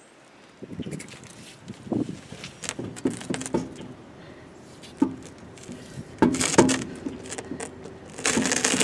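Scattered metallic clinks, knocks and scrapes from hand work at a car's wheel: parts and tools being handled and set down, with jangling like loose lug nuts.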